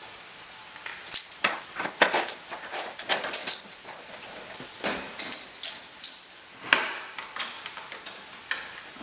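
Socket ratchet and metal tools clicking and clinking in irregular bursts, some in quick runs, as a 10 mm bolt is backed out of the radiator assembly.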